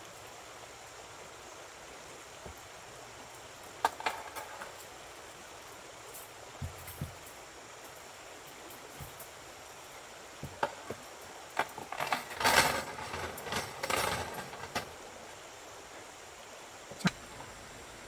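Steady rush of a creek, with scattered small clicks, knocks and clinks of gear being handled, a busy run of them about two-thirds of the way through.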